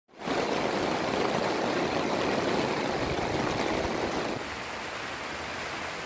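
Heavy rain pouring steadily, a dense even hiss of falling water; it drops a little in level about four seconds in.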